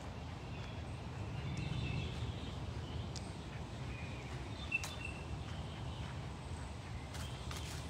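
Outdoor ambience of faint bird chirps over a steady low rumble on the microphone, with a few light clicks near the end.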